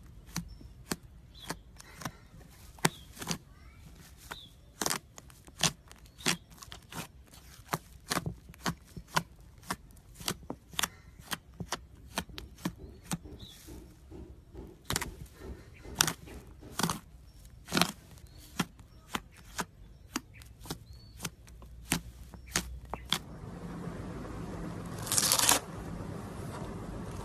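White slime being squeezed and kneaded by hand, giving off a steady run of sharp pops and clicks. Near the end, scissors cut into a floam slime full of foam beads with a short, loud crunch.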